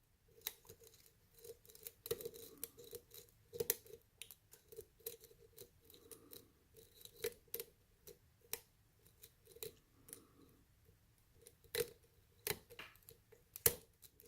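Faint, irregular small metallic clicks and scrapes of a lock pick working the pins of a pin-tumbler lock under light turning tension.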